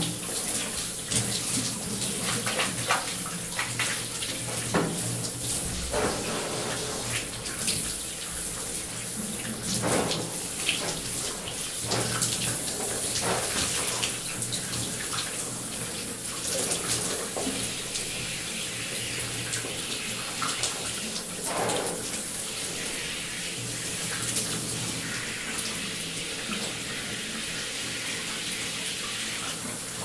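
Shower running: a continuous hiss of spray, broken by frequent irregular splashes and shifts in the flow as someone showers under it, settling into a steadier spray in the last third.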